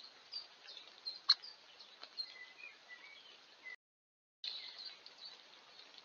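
Woodland birds calling and chirping, many short high notes, over a faint hiss, with a few sharp clicks, the loudest about a second in. The sound cuts out completely for under a second a little past the middle, then the birdsong resumes.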